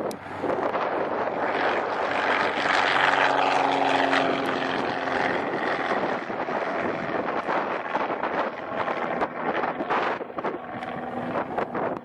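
Mooney single-engine propeller plane at full takeoff power, its engine and propeller loudest about three seconds in and then fading as it climbs away. Wind gusts buffet the microphone throughout.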